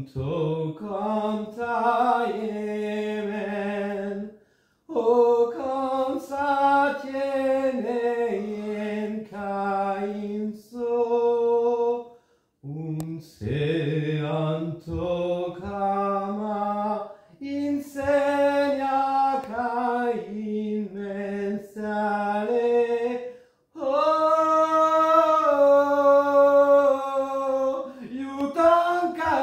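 A man chanting unaccompanied, his voice gliding between held notes. He sings in phrases several seconds long, with three short breaks for breath.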